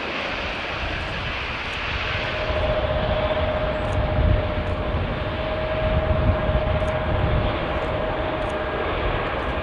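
Antonov An-225's six Progress D-18T turbofan engines at take-off power as the plane begins its take-off run: a loud rushing engine noise with a steady whine, growing louder with deeper rumble about two seconds in.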